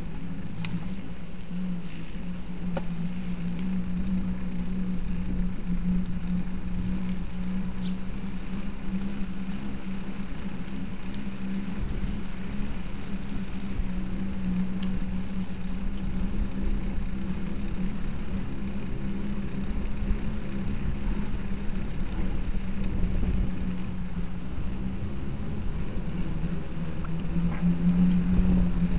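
A small motor humming steadily at one pitch, over the low rumble of wheels rolling across pavement.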